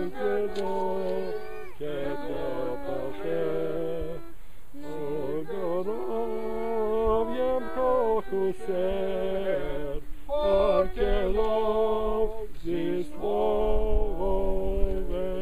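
A group of mourners, men and women together, singing a hymn without accompaniment in long held phrases, with short pauses between lines.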